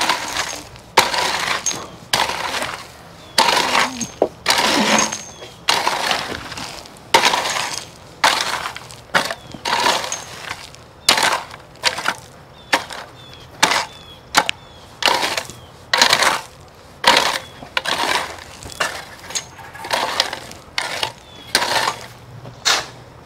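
Long-handled hand tools scraping and scooping through stone dust and gravel in short, gritty strokes, about one a second.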